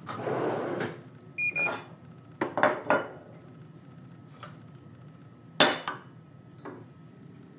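Single-serve coffee machine ending its brew with a short sputtering hiss, then giving one short beep. Then a ceramic coffee cup clinks as it is lifted off the machine's drip tray, and it is set down on a saucer with a sharp clink about two-thirds of the way in.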